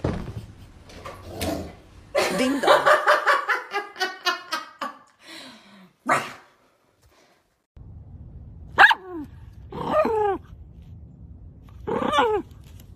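Dogs barking: a fast run of short barks a couple of seconds in, then later three single barks, each falling in pitch, spaced about a second apart.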